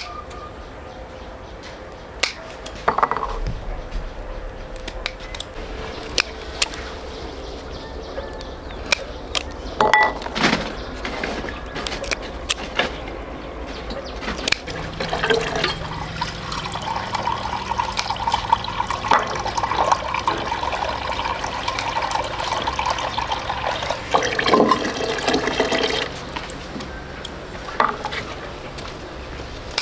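Water pouring and splashing, with scattered clicks and knocks, heaviest for about ten seconds past the middle.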